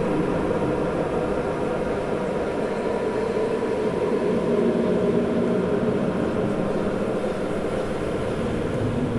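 Designed sound-effect drone: a dense, steady, machine-like texture with several held low tones that slowly shift in pitch.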